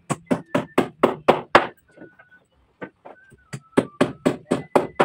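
Claw hammer striking the wooden frame of a sofa in two quick runs of blows, about four a second, with a short pause about two seconds in and a faint ringing tone between some strikes.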